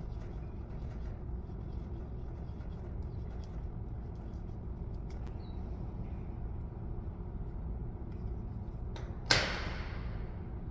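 Tubing cutter being turned around PEX pipe, barely heard as faint small ticks over a low steady hum. About nine seconds in comes one sharp clack with a short hissing tail.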